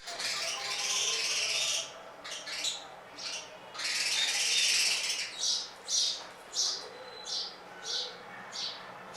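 Small birds chirping: two longer stretches of dense high chirping in the first half, then a run of short single chirps, about one every two-thirds of a second.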